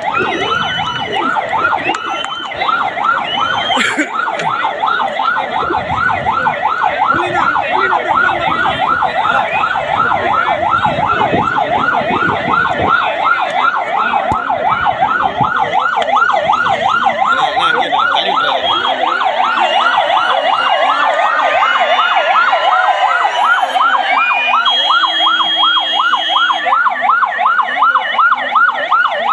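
Vehicle siren sounding a fast yelp, rapid rising sweeps repeating several times a second without a break, with crowd voices shouting over it.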